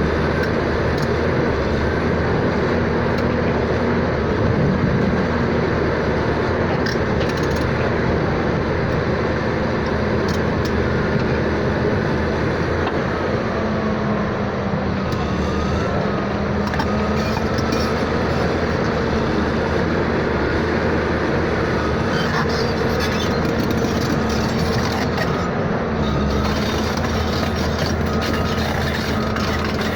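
Steady vehicle running noise, a dense even rumble with a faint droning tone that shifts slightly in pitch partway through.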